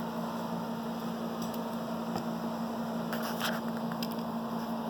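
Steady low hum from a running machine or appliance in the room, with a few faint light clicks about three seconds in.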